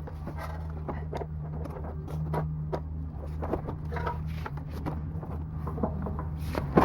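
Scattered light clicks and taps of hand tools and metal parts being handled while a small generator engine is dismantled, over a steady low hum.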